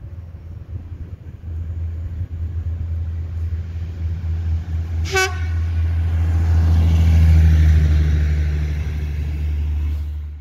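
A railway track-maintenance draisine running past, its low steady engine hum growing louder as it approaches and passes. It gives one short horn toot about five seconds in.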